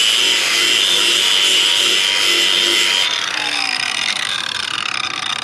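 Angle grinder with a flap disc grinding down a wooden board, running steadily, then released about three seconds in and winding down with a falling whine.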